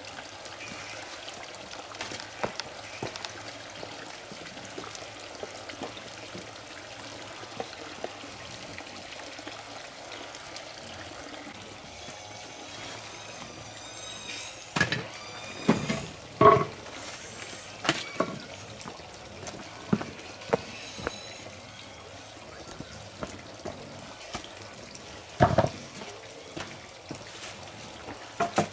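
Rustling and scattered knocks of a white plastic sheet being spread and smoothed out by hand on dirt, over steady background noise. The louder rustles and knocks come in a cluster starting about halfway through, with another near the end.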